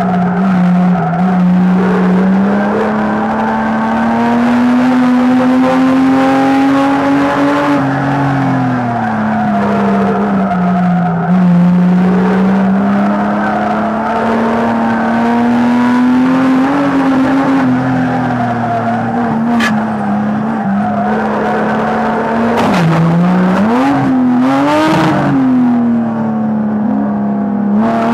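Engine of a rear-wheel-drive banger race car heard from inside the cabin, the revs rising and falling slowly as it laps the track. In the last third come a few sharp bangs and knocks, with the revs dipping and flaring quickly, as the car runs into a pile-up of wrecked cars.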